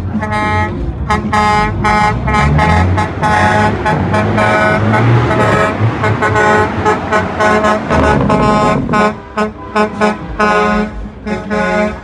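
Truck air horns blown in many short blasts in quick succession, with a heavy truck's engine running underneath as the rig passes in the middle.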